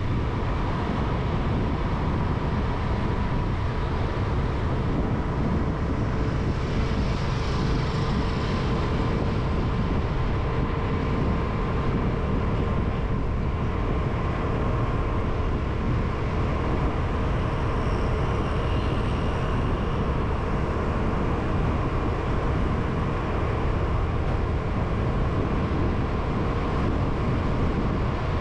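Steady road traffic noise with a heavy low rumble and a faint steady hum.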